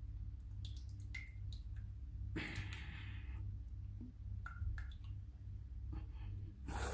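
A stick being worked through thick paint in a metal paint can, giving faint scattered clicks and wet sounds against the can, with a brief rustle about two and a half seconds in. A low steady hum runs underneath.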